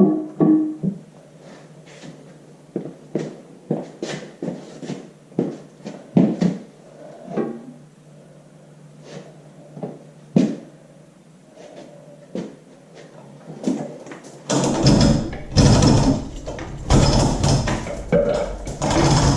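Scattered light knocks and clinks of metal being handled as the tractor engine is worked off its engine stand, then, about fourteen seconds in, a much louder, continuous clattering that keeps going.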